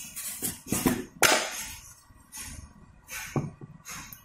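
Kitchen utensils clinking and knocking: several short, sharp clatters, the loudest about a second in, as a spoon and spice containers are handled over a bowl of pickle spices.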